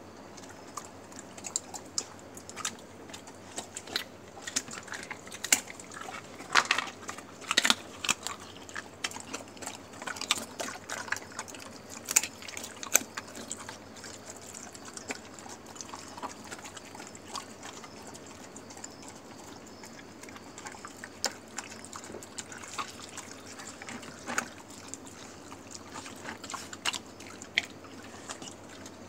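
Dogs lapping and slurping a liquid meal of milk and chicken broth with rice from a bowl: irregular wet clicks and smacks, busiest in the first half.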